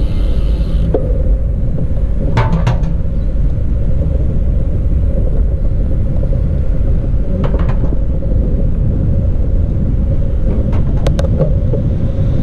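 Wind rumbling over the microphone of a camera riding along on a moving bicycle, with a few brief clusters of sharp clicks or rattles from the bike.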